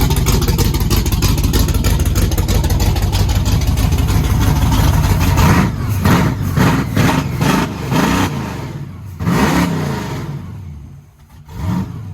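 Car engine idling with a slight miss, then revved in several quick blips of the throttle, each rising and falling, before settling lower near the end.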